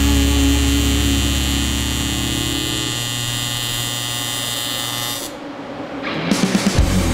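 AC TIG welding arc buzzing steadily on aluminium. Its low hum fades about three seconds in, and the arc cuts out about five seconds in. Music with a heavy beat comes in near the end.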